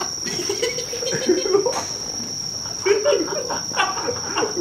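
Crickets trilling in one steady, unbroken high tone. A single sharp crack of an iron striking a golf ball comes a little under two seconds in, and a man's voice laughs and exclaims over it.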